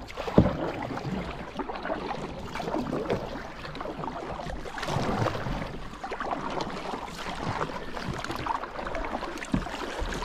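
Double-bladed paddle dipping and pulling through calm water as a sit-on-top fishing kayak is paddled, the splashes swelling about every two seconds. A sharp knock sounds near the start and another near the end.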